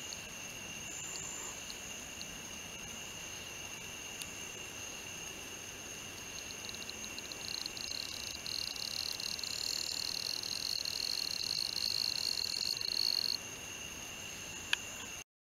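Night chorus of insects: steady high-pitched trills, joined about seven seconds in by a louder buzzing trill that begins as separate pulses, swells, and cuts off abruptly. A single sharp click near the end.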